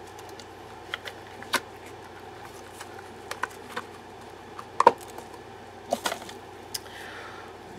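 Scattered light clicks and knocks of gloved hands working a resin casting out of a flexible silicone mold, the loudest a quick pair of knocks about five seconds in, over a steady low hum.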